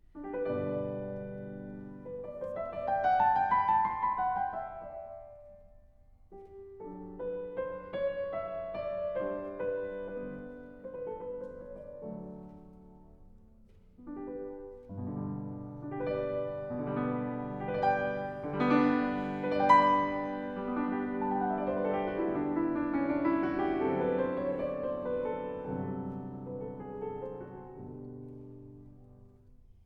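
Solo piano music played in slow phrases, swelling and fading, with a pause about six seconds in and another about fourteen seconds in.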